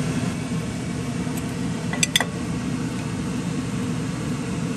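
A steady low mechanical hum, with two sharp clinks close together about two seconds in, as a utensil strikes the pan while the koftas are put back into the gravy.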